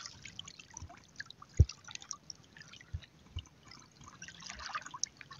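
Sea water dripping and trickling from hands lifted out of shallow water, with small sloshes of wading. A single low thump about a second and a half in.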